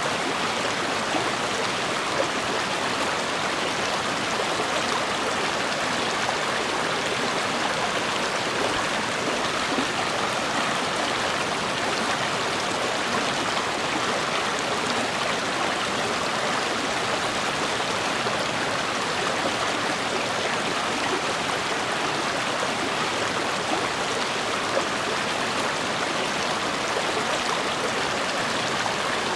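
River water running over rocks in a steady, unbroken rush.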